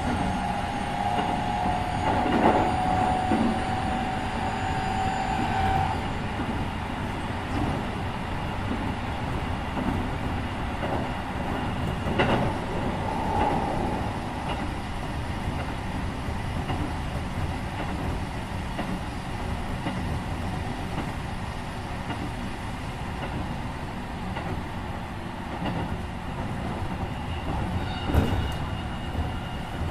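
Keikyu 1500-series electric train running, heard from inside the car: a steady rumble of wheels on rail, with the whine of its Mitsubishi IGBT-VVVF inverter and traction motors that stops about six seconds in. A few sharp knocks come from the wheels passing over rail joints.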